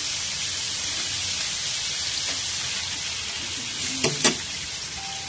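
Chicken pieces sizzling in a hot non-stick pan, a steady hiss. About four seconds in, two sharp knocks as a ground paste is tipped into the pan from a plastic container.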